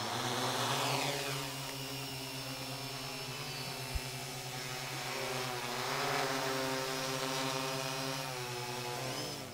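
A small quadcopter drone's electric motors and propellers whirring as it lifts off and hovers, with a steady pitched buzz. The pitch drops over the first second or so, swells again past the middle and shifts near the end as the rotor speed changes. A single sharp click comes about four seconds in.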